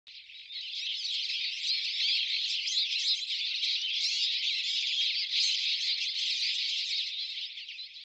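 Common linnet singing: a fast, continuous high twittering of many rapid notes.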